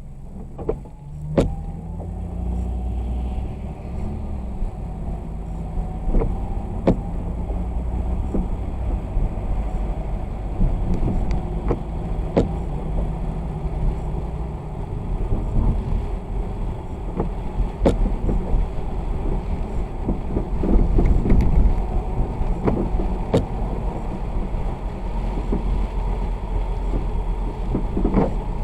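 A motor vehicle driving on a wet road: low engine and tyre rumble, the engine note rising as it picks up speed in the first few seconds. Sharp clicks or knocks come now and then throughout.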